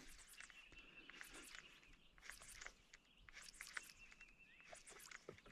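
Near silence: faint outdoor ambience with a few soft ticks and a faint high tone that comes and goes.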